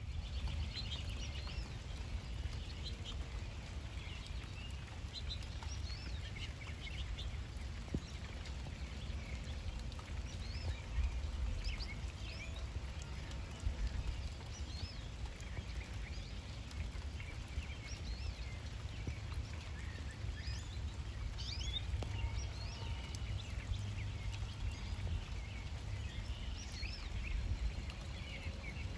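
Songbirds chirping and singing: many short, high calls and trills scattered throughout, over a steady low background of rain and outdoor noise.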